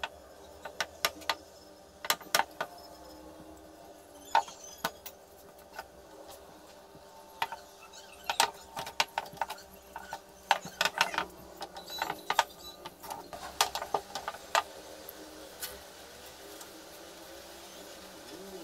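Wooden rolling pin working dough on a board, with the bangles on the rolling wrist clinking and the pin knocking in irregular sharp clicks, thickest from about eight to fifteen seconds in, over a faint steady hum.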